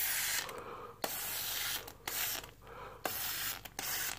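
Aerosol can of air-conditioner coil cleaner spraying onto the unit's cooling fins in a run of short hissing bursts, about one a second.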